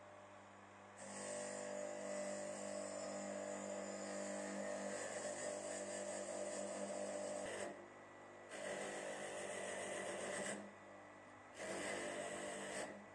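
Bench electric motor humming steadily while hacksaw parts are pressed against its spinning polishing pad and wire brush wheel. This gives three spells of grinding hiss: the first about six seconds long, then two shorter ones, each after a pause of about a second.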